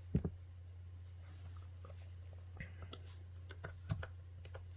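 Scattered small clicks and taps as the tablet's glued-on screen is pried away from its frame, over a steady low hum.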